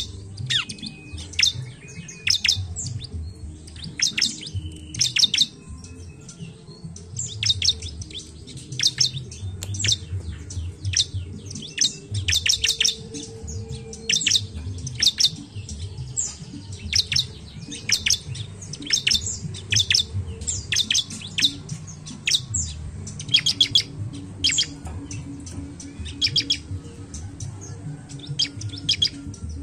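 Bar-winged prinia (ciblek) singing: quick bursts of sharp, high chirps repeated every second or less, with brief pauses, over a low background rumble.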